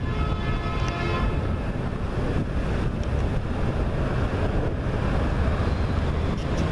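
Wind buffeting the microphone over the steady sound of passing road traffic. A faint, distant fire-truck air horn sounds steady tones that fade out about a second and a half in.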